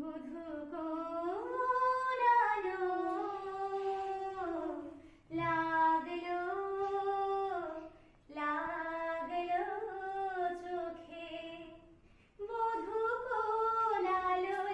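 A woman's voice singing a slow melody in four long, held phrases, with short pauses for breath between them.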